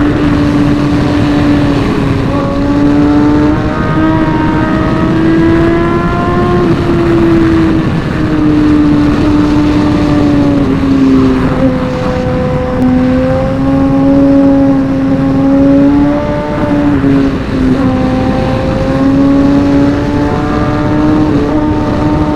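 Inline-four superbike engine held at high revs under hard riding, its pitch rising and dipping gently with the throttle, over a steady rush of noise in the low end.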